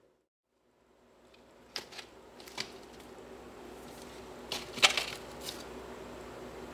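Silent for the first second, then a kitten's paws and claws scratch and knock against cardboard egg trays and a blanket. There are a few sharp scratches about two seconds in and a louder cluster near five seconds, over a steady low hum.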